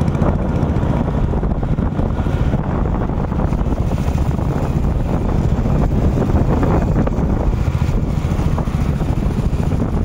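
Wind rumbling on the microphone while riding a motor scooter, with the steady engine and road noise of the ride underneath.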